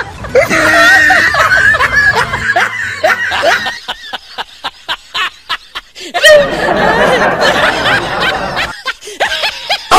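Snickering and chuckling laughter: a run of short, evenly spaced laughs in the middle, then a denser burst of laughter near the end.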